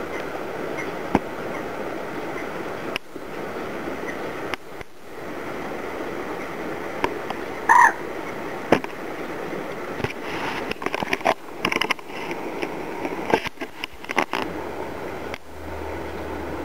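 Steady background hiss with one short, loud croaking call about eight seconds in, then scattered short croaks and clicks in the second half.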